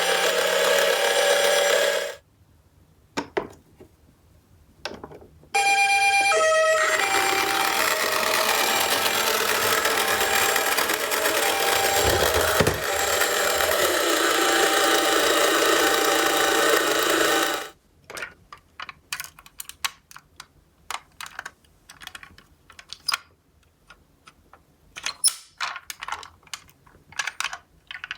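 Toy ambulance's electronic siren sounding, a harsh, buzzy two-tone wail. It cuts off about two seconds in, starts again a few seconds later and runs until shortly after the halfway point. After that come scattered light clicks and clatter of the small toy cars against the cardboard.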